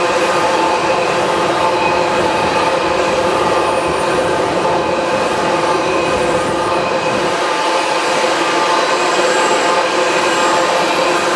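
Tank cars of a long oil train rolling past, steel wheels squealing on a curve: several steady high-pitched tones over an even rolling rumble.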